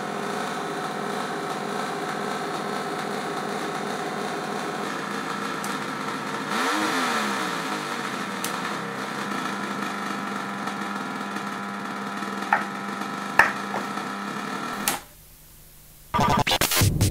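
A handmade noise machine built on the Texas Instruments SN76477 sound-generator chip, giving a steady buzzing, engine-like electronic drone that pulses. Its pitch sweeps down and back up about halfway through. Two sharp clicks come near the end, then the drone cuts out and loud rhythmic electronic bursts start.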